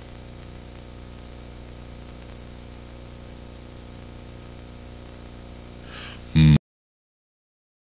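Steady recording hiss with a low electrical hum, the bare noise floor of the recording. Near the end a brief loud pitched sound starts and is cut off abruptly into dead silence.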